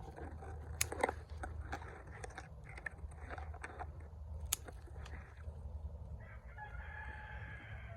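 Rustling foliage and a few sharp snips of scissors cutting bottlebrush stems, the loudest about a second in. Then, from about six seconds in, a rooster crows once, a long call that runs to the end.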